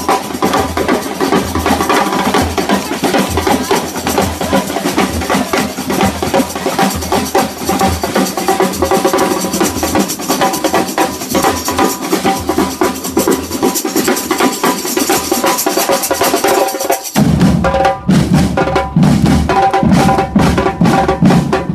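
Samba band percussion playing a dense, driving groove of drums. About seventeen seconds in, the pattern changes to sparser, heavier low drum strokes.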